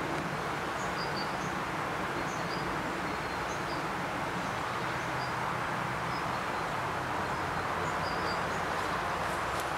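Steady outdoor background noise, a broad hiss with a faint low hum beneath it, and faint high chirps now and then.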